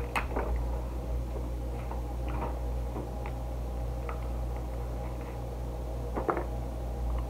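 Faint scattered clicks and crackles of boiled crab and shrimp shells being picked apart by hand and eaten, with a slightly louder crackle about six seconds in, over a steady low hum.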